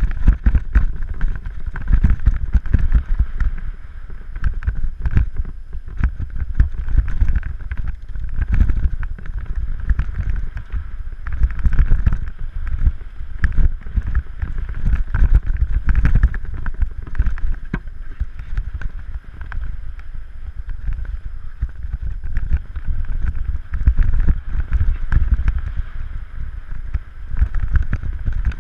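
Wind buffeting the microphone: a heavy, uneven rumble that surges and eases every second or two, over a steady higher hiss.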